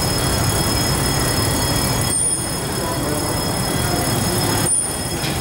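Fire truck pump running and its roof water cannon spraying a jet: a steady rushing hiss with a high whine over it, dipping briefly twice.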